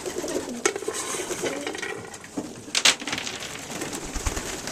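Young racing pigeons cooing, with sharp clicks and one loud short rattle just before three seconds in, the sound of the birds pecking and peanuts being handled.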